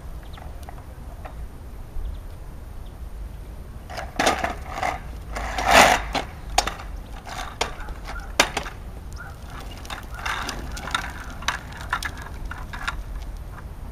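Toddler's plastic tricycle rolling over rough tarmac, its hard wheels rumbling with scattered clicks and knocks, with a louder sound about six seconds in.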